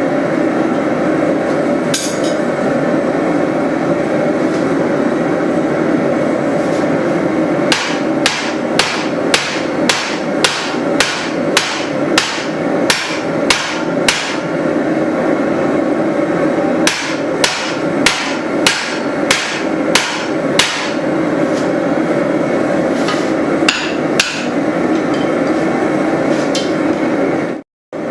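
Hand hammer striking hot steel in two runs of quick blows, about two a second, with a few single strikes around them, while a hatchet's eye is drifted out. A steady noise runs underneath, and the sound cuts out briefly near the end.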